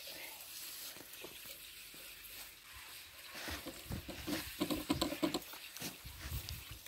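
A knife cutting through the fat and meat of a pig carcass, with the wet slicing and scraping of the meat being handled, irregular and busiest about four to five seconds in.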